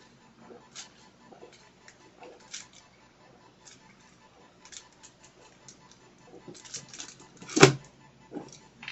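Scattered faint clicks and mouth sounds of someone drinking cola, then one short, loud thump near the end.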